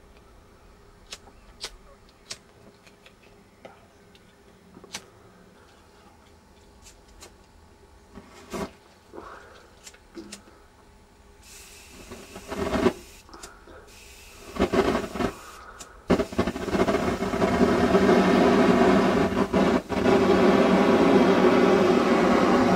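Scattered sharp clicks, then a gas flame jet starting up in surges about twelve seconds in and rushing loud and steady from about sixteen seconds on, like a rocket engine firing.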